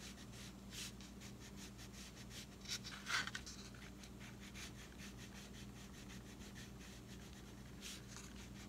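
Red wax crayon rubbing on paper in quick repeated strokes as feathers are coloured in, a faint scratchy sound with one firmer stroke about three seconds in.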